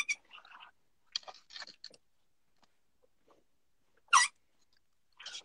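Plastic snap being set in fabric with a hand snap press: faint handling clicks, then one short crunch as the press closes about four seconds in.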